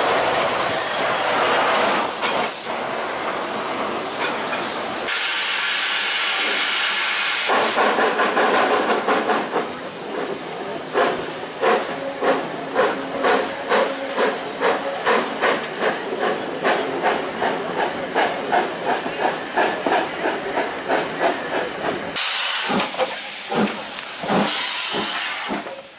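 Steam locomotive letting off hissing steam, then its exhaust chuffing in a steady beat of about two a second as it pulls a train away.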